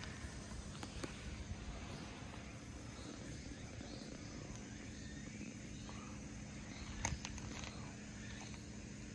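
Quiet outdoor ambience: a steady low background rumble with faint chirps of insects or birds, a few light ticks and one sharper knock about seven seconds in.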